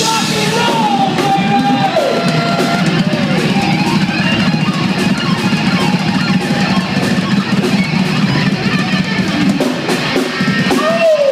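Live rock band playing loudly: electric guitar lead over drums, with notes that slide and bend in pitch.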